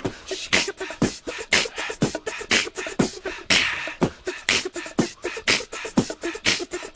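Beatboxed rhythm, a vocal drum break in a pop dance track with no melody over it: about two strong kick-like hits a second with quieter clicks and hissing snares between.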